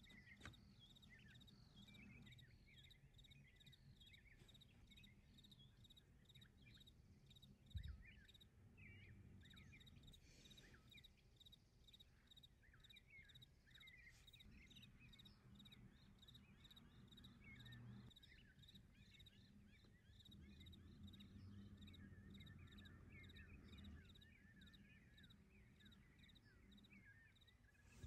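Very faint outdoor ambience: small birds chirping and a fast, even insect trill over a low hum, with one soft thump about eight seconds in.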